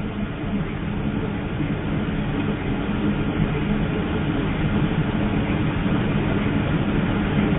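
Steady low droning noise with a hiss over it, slowly getting louder.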